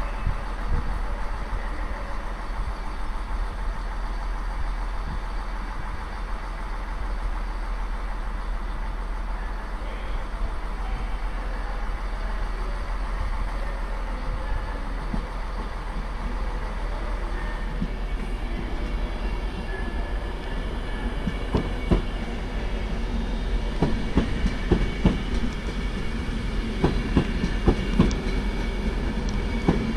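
A train running past, its wheels clicking over rail joints, the clicks coming thicker and louder in the second half.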